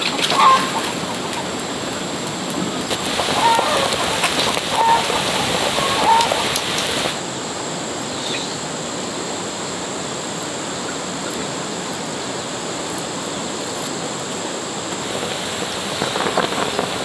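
A few short chicken clucks over a steady hiss in the first half. After about seven seconds the hiss runs on smoother and unbroken.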